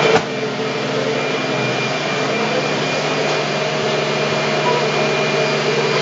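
Upright vacuum cleaner running steadily, a constant hum with a thin high whine over its airflow noise. A single sharp knock sounds right at the start.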